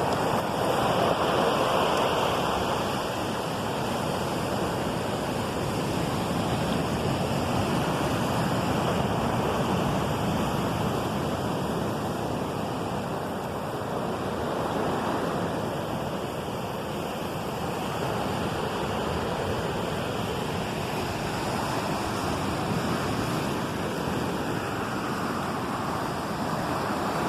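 Steady rushing of water, swelling and easing slowly, louder near the start and again near the end.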